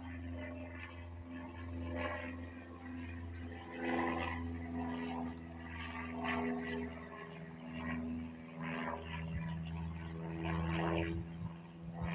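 Airplane passing overhead: a steady engine drone made of several held low tones, with louder swells of higher sound coming and going about every two seconds.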